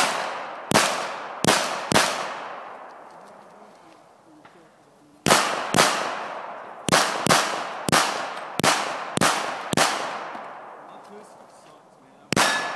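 Semi-automatic pistol shots in strings: four shots in the first two seconds, a pause of about three seconds, then about nine shots in quick succession, and one more near the end. Each shot trails a long echo.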